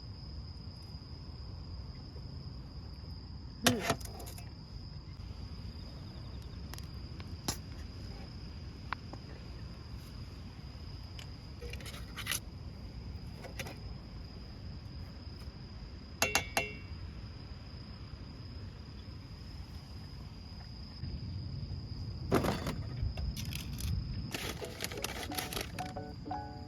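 Crickets trilling steadily in the dark over a low wind rumble, with a few sharp clinks of eating utensils now and then.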